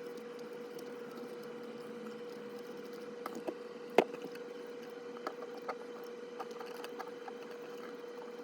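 Scattered small clicks and taps of a small plastic model locomotive chassis being handled while it is cleaned, the loudest about four seconds in, over a faint steady hum.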